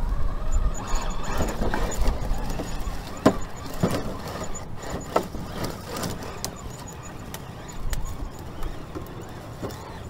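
Electric RC rock crawler's motor and drivetrain whining in uneven bursts as it works over rocks, with a few sharp knocks and crunches in dry brush and rock a few seconds in.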